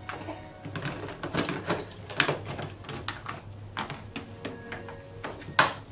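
Plastic sippy cup knocked and tapped against a plastic high-chair tray: irregular clacks, the loudest about two seconds in and again near the end.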